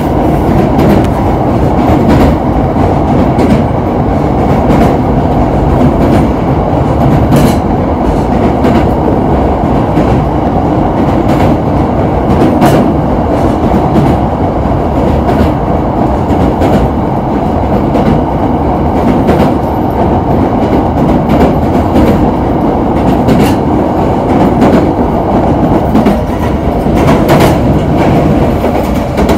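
JR Kobe Line train running at speed, heard from inside the carriage: a loud, steady rumble of wheels on rails with occasional sharp clicks scattered through it.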